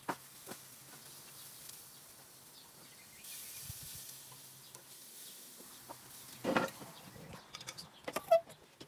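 Quiet outdoor ambience with a faint hiss in the middle, then a few short knocks and clicks near the end as the phone filming is handled.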